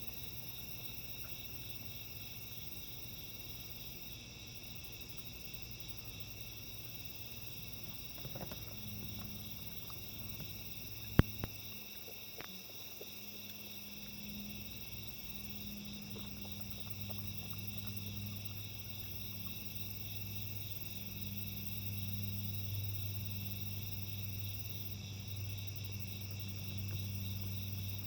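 Steady chorus of insects trilling, with a low hum underneath that grows louder in the second half. A single sharp click about eleven seconds in.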